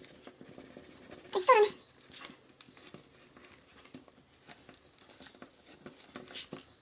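Wooden modelling stick scratching and tapping on a plastic sleeve as cold-porcelain petals are pressed thin inside it: a run of small clicks and rubs. A brief, loud pitched squeal with bending pitch comes about a second and a half in.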